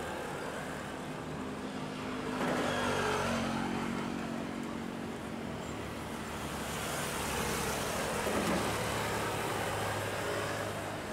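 Motor vehicle engines passing close by twice, about two seconds in and again about seven seconds in, over a steady background of harbour noise.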